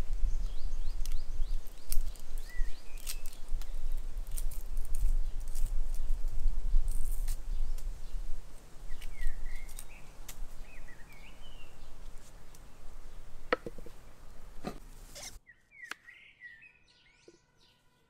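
Knife cutting a red onion on a wooden cutting board: scattered sharp clicks and taps over a steady low rumble that stops abruptly near the end. Birds chirp several times in short, wavering calls.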